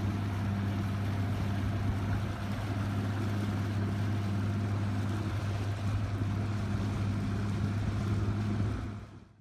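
Bass boat's outboard motor running steadily under way: a constant low hum with wind and water noise. It fades out near the end.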